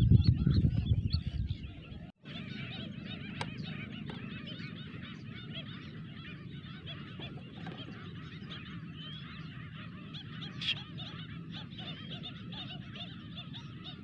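Dense chorus of many birds calling without pause, a mass of short overlapping chattering calls. It follows a loud low rumble in the first two seconds that cuts off abruptly.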